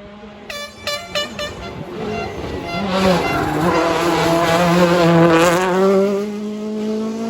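Rally car engine: a few short throttle blips about half a second to a second and a half in, then a car coming past under power, its revs falling and rising, loudest about five seconds in.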